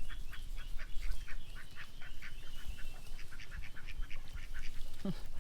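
A fast, even run of short, high-pitched animal calls, about five a second, over a steady low rumble.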